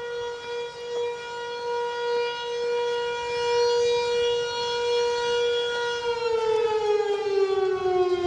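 Outdoor warning siren sounding one steady, loud note, then starting to wind down, its pitch sliding slowly lower about six seconds in.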